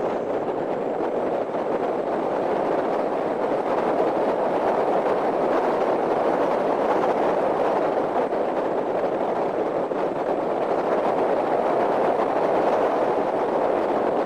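Hyundai Genesis Coupe on the move: a steady rush of road and wind noise, getting a little louder over the first few seconds and then holding even.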